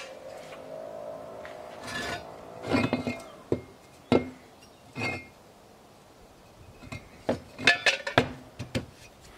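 Pieces of rusty steel tube clinking and knocking together as they are handled and set down on a wooden table. One clank at the start rings on for a few seconds, then come single knocks about a second apart and a quick rattle of several knocks near the end.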